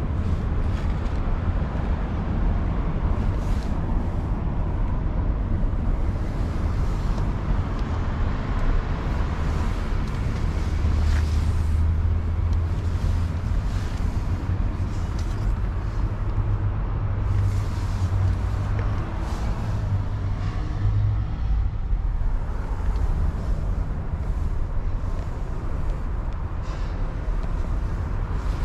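Steady low rumble of road traffic, with a few faint knocks from handling.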